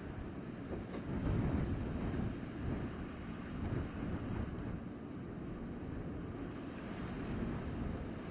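Blizzard wind blowing in low, rumbling gusts, swelling about a second in and again near four seconds.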